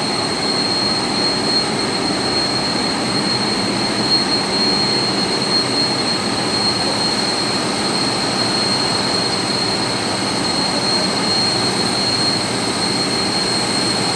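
Carrier Evergreen water chiller's compressor running: a loud, steady machine noise with a steady high-pitched whine over it.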